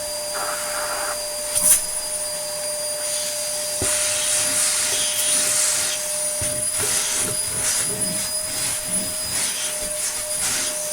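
Hitachi Stowaway CV-7405 cylinder vacuum cleaner running steadily, a high motor whine over the rush of suction through the hose and tool. A sharp click comes near the second second and a knock a couple of seconds later, and after that the suction noise rises and falls as the tool is moved about.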